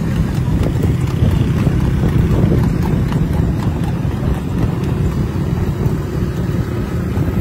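Motorcycles riding alongside a trotting horse pulling a racing cart: a steady low engine and road rumble, with the horse's hoofbeats faintly mixed in.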